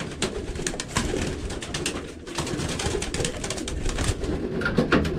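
Homing pigeons cooing in a small wooden loft, with frequent short wing flaps and scuffles as the birds are shooed around.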